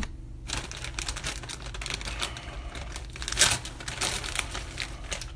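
Jolly Rancher hard candy's plastic wrapper crinkling as it is unwrapped by hand: a run of crackles with a louder burst about three and a half seconds in.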